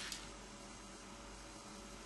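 Faint steady hiss of room tone while the robot stands idle between moves, with one small tick just after the start.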